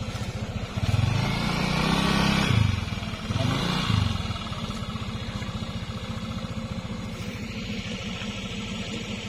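Motor scooter engine running while the bike is worked through deep mud, revving up in bursts during the first four seconds, then running steadily.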